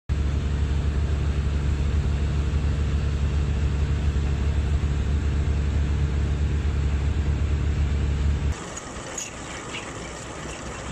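A boat's engine drones steadily under a rush of water and wind noise. About eight and a half seconds in it drops away abruptly to quieter water sounds with a few light clicks.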